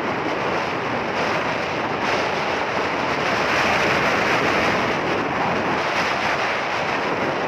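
Wind rushing over a phone's microphone from a moving vehicle, a loud, steady rush mixed with road noise.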